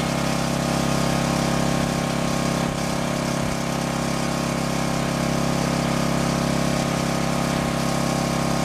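Small engine running steadily at one even speed, its pitch unchanging.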